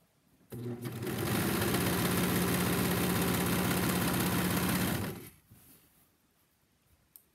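Serger (overlock sewing machine) stitching a seam: it spins up about half a second in, runs at a steady speed, and stops about five seconds in.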